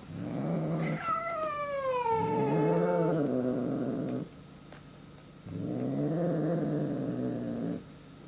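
Siamese cat growling and yowling: one long call of about four seconds whose higher part slides down in pitch, then after a short pause a second long, low call.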